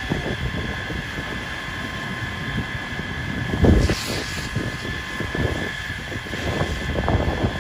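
Wind buffeting the microphone over the noise of a burning truck cab being hosed down, with a steady high whine throughout. A short thump with a hiss comes about four seconds in.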